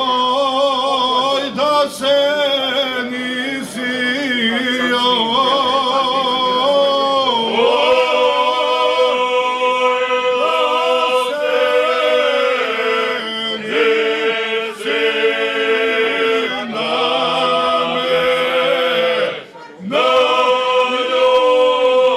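Male folk vocal group singing a traditional Krajina song unaccompanied, several voices holding long notes in close harmony, with a short break for breath near the end.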